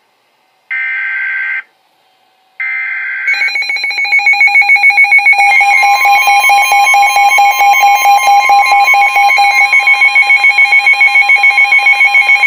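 Emergency Alert System activation on NOAA Weather Radio for a severe thunderstorm warning. It begins with two short bursts of screechy digital header tones, about a second each with a gap between them. From about three seconds in, a loud electronic alarm pulses several times a second, and a steady single alert tone joins beneath it.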